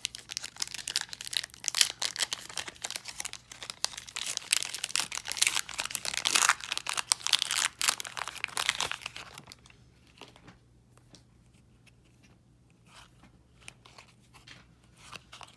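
Card booster pack wrapper being torn open and crinkled for about nine and a half seconds, then softer handling with scattered light taps.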